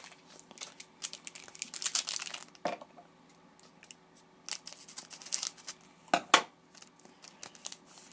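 A trading card pack wrapper crinkling and being torn open in crackly bursts, with a few sharp snaps: one a few seconds in and two close together near the end.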